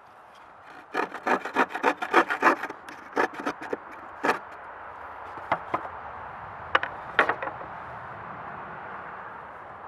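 Antique Disston & Sons handsaw cutting through a board: a quick run of strokes starting about a second in, then slower, scattered strokes, with the last ones a little past halfway.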